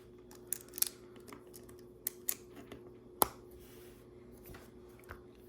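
Plastic LEGO pieces clicking and tapping as they are handled and pressed into place. There are several separate sharp clicks, and the loudest comes about three seconds in.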